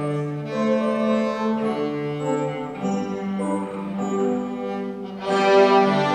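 A children's beginner string ensemble of violins and a cello playing together in held, bowed notes that change pitch every second or so. The playing grows louder about five seconds in.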